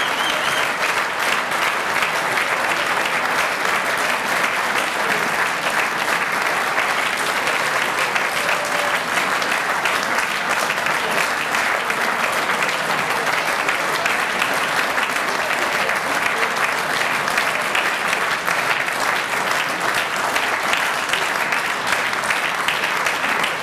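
Large audience applauding steadily: a dense wash of many hands clapping that holds at an even level for over twenty seconds.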